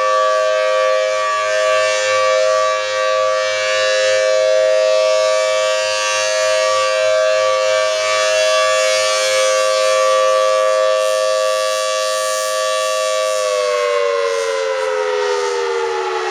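Federal Signal Thunderbolt 1000T B-Series civil defense siren sounding a steady tone. About thirteen seconds in it begins to wind down, its pitch falling steadily.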